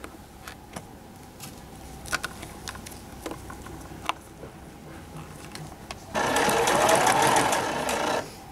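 Electric sewing machine stitching in a concealed zipper. It runs in one burst of about two seconds near the end, its motor whine rising as it speeds up. Before that come scattered light clicks and rustles as the fabric and pins are handled under the presser foot.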